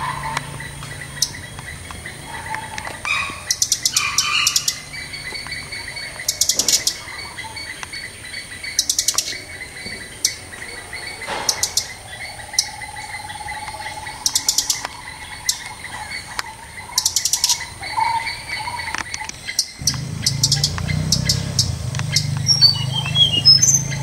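Flycatcher nestlings giving short bursts of rapid, high chirping every two to three seconds over a steady high-pitched whine. A low hum rises near the end.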